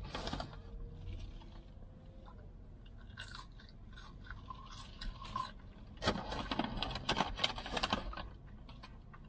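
Brown paper fast-food bag crinkling as a hand reaches in for French fries, with chewing and crunching of the fries in between. The loudest crinkling comes about six to eight seconds in.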